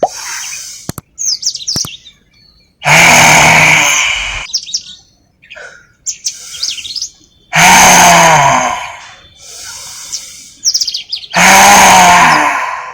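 Three loud, breathy roars, each about a second and a half long, from a man doing lion's breath (simhasana): a forceful open-mouthed exhalation with the tongue stuck fully out. Birds chirp in the gaps between the roars.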